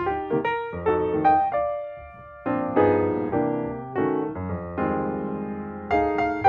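Background piano music: notes and chords struck one after another, each dying away, with a brief lull about two seconds in.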